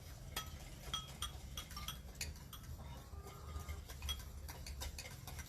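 Metal spoons and forks clinking and scraping against mixing bowls as pancake batter and flour are stirred: many light, irregular clinks, several with a short ring.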